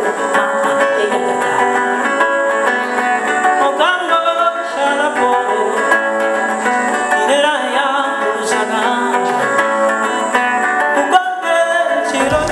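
Acoustic guitar played live with voices singing over it, an unplugged group performance.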